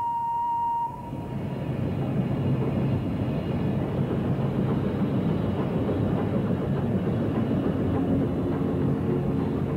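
FS class 740 2-8-0 steam locomotive running along the line: a steady, dense rush of exhaust and running-gear noise.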